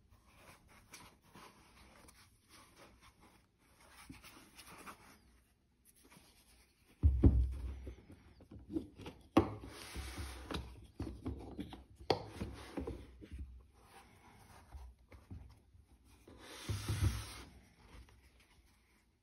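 Gloved hands handling a watch box's foam insert and plastic tray: intermittent rubbing and scraping, with a few sharp clicks and louder bursts of handling about seven, ten, twelve and seventeen seconds in.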